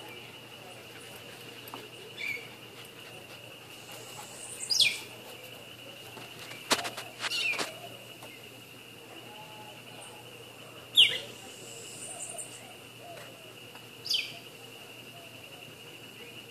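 Steady high-pitched insect drone with a bird giving three loud, short calls that sweep sharply down in pitch, about five, eleven and fourteen seconds in. A few sharp clicks come about seven seconds in.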